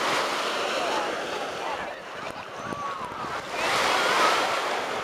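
Ocean surf breaking on the beach: a continuous rushing wash of water that dips briefly, then swells again about three and a half seconds in as a wave breaks at the shoreline.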